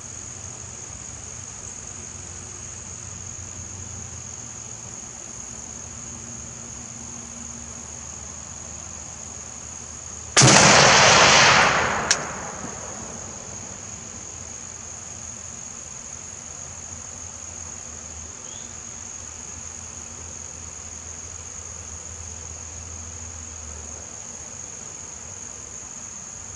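A single .30-06 rifle shot from an M1D Garand sniper rifle about ten seconds in, its report dying away over about a second and a half. Insects trill steadily at a high pitch throughout.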